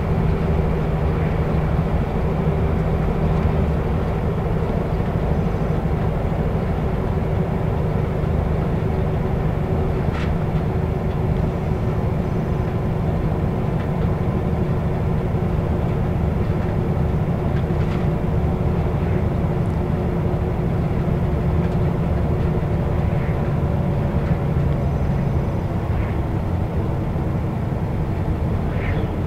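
Volvo B7R coach's six-cylinder diesel engine running steadily under way, heard from inside the passenger cabin together with road noise and a few light clicks. The engine note drops slightly near the end.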